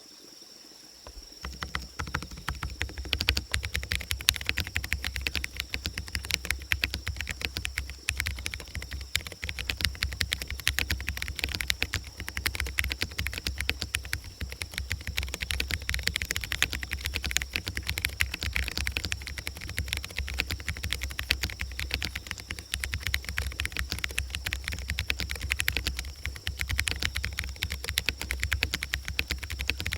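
Continuous fast typing on a mechanical keyboard fitted with fully hand-lubricated JWK switches: a dense run of keystrokes that starts about a second and a half in, over a faint steady high-pitched tone.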